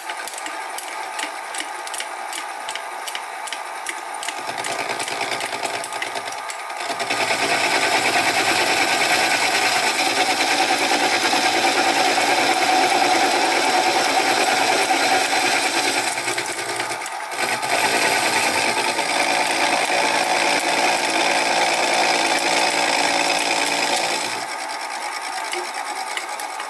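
Sieg SX2P mini milling machine running at 600 RPM with a 16 mm cutter, facing the port face of a Stuart half beam engine cylinder casting 10 thou per pass. A steady motor whine grows louder about seven seconds in while the cutter is in the metal, dips briefly about two-thirds through, and eases back near the end.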